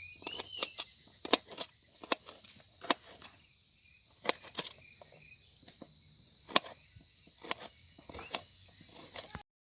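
Steady, continuous chirring of crickets, with irregular sharp clicks and knocks scattered through it.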